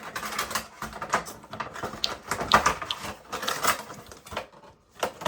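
Plastic being handled at close range: irregular clicking, tapping and rustling that thins out near the end.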